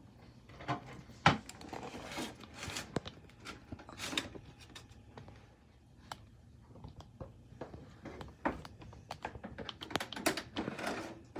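Small knocks, clicks and rustles of fish pieces being set down and shifted on a wire mesh air-fryer rack, with one sharper knock about a second in. Near the end a quick run of clatters as the metal rack goes into the air fryer.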